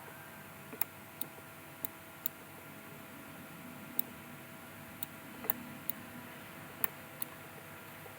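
About a dozen sharp computer mouse clicks at irregular intervals, over a faint steady hum.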